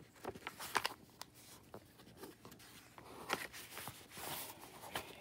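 Pages of a paperback book being turned and handled: a string of short paper rustles and soft taps, with a longer run of rustling from about three to four and a half seconds in.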